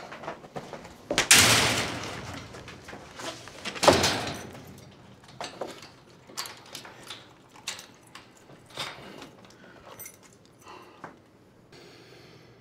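Doors banging: two loud bangs, about a second in and near four seconds, then a run of lighter clicks and knocks as a mesh-screened cell door is shut.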